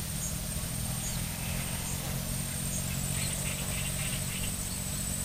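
Outdoor ambience of a steady low motor hum under a thin, steady high-pitched tone, with short bird chirps, a quick run of them about three seconds in.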